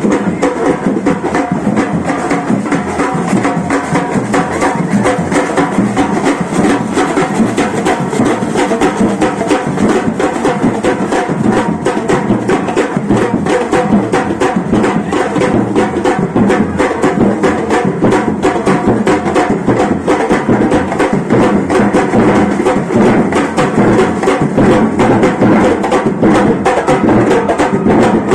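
Percussion group playing in a street procession: drums and wood-block-like strikes keep a fast, dense, unbroken beat.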